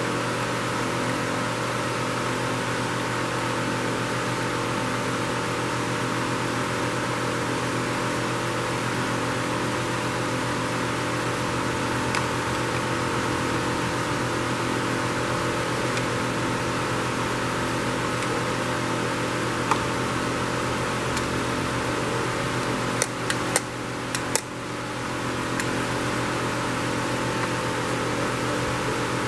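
Steady running of an electric shop fan, an even whooshing noise with a low hum. Late on, a quick run of small sharp clicks.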